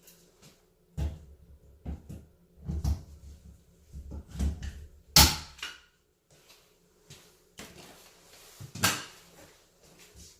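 Irregular wooden knocks and thuds as plywood sheets are handled and fitted, with a sharp bang about five seconds in and another knock near nine seconds.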